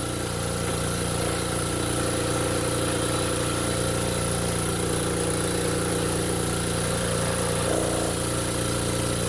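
Small single-cylinder piston air compressor running steadily, pumping air into its tank now that its intake draws air properly again after repair.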